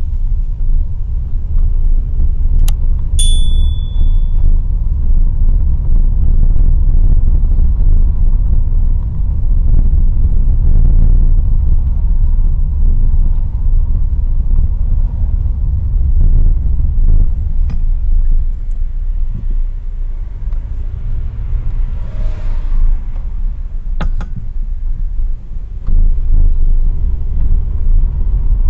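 Steady low rumble of a car's engine and tyres while driving, heard from inside the cabin through a windshield dashcam's microphone. A couple of sharp clicks come about three seconds in, one with a brief high tone, and another click comes later.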